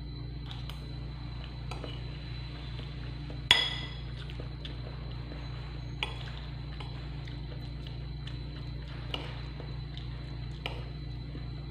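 Metal spoon clinking and scraping against a ceramic bowl while scooping rice: one loud ringing clink about three and a half seconds in, then a few lighter taps, over a steady low hum.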